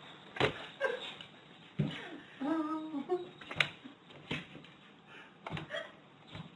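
A dog's teeth and claws knocking against window glass as it snaps and paws at a bee behind the pane: sharp irregular clicks, the loudest about three and a half seconds in, and a quick run of three near the end. About two and a half seconds in comes a short hum-like vocal sound.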